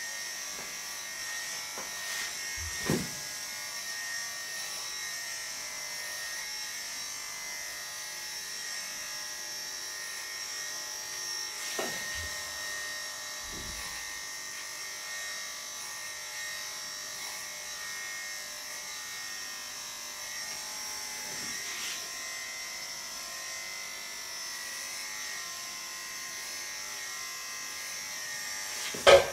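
Electric pet grooming clippers running steadily as they shave a bichon frise's coat. A few short knocks come through, and a louder thump near the end.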